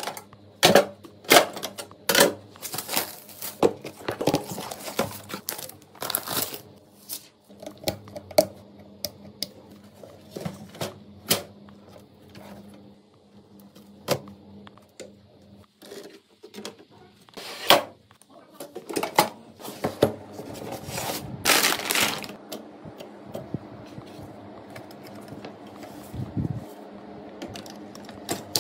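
Hands handling desktop PC parts: irregular clicks and clacks of plastic and metal, with short rustling bursts.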